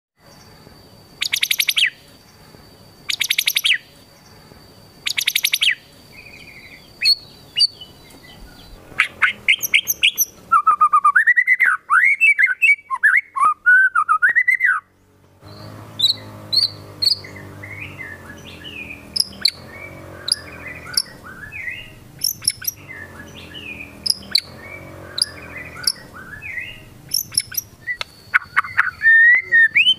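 Caged white-rumped shama singing a varied song. It opens with three short buzzy bursts of rapid notes, then loud swooping whistles, then many quick sharp chirps. The song is full of mimicked phrases ('isian'), including the rapid 'tembakan' phrases.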